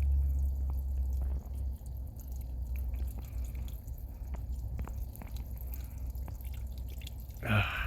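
Backed-up drain water dripping and trickling out of an opened drain line as it is left to drain, with scattered drips over a steady low rumble.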